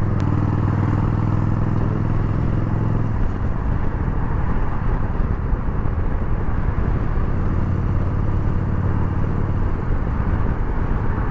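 Yamaha Bolt's air-cooled V-twin engine running while riding in traffic. Its steady low note is clear for the first few seconds, sinks into a rushing noise mid-way, and comes back clearly near the end.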